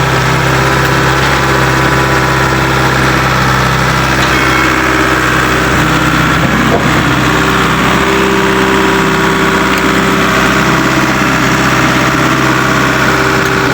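Heavy-equipment diesel engine running steadily, a loud continuous drone. A higher steady whine grows stronger about halfway through.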